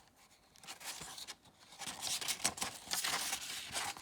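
Paper rustling and crinkling as the page of a picture book is handled and turned, a run of rustles starting about a second in and growing louder.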